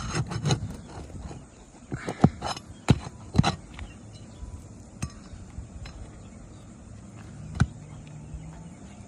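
Metal tool clinking and knocking against roofing nails and asphalt shingles while nails are pried out: a cluster of sharp clicks a couple of seconds in and one more near the end.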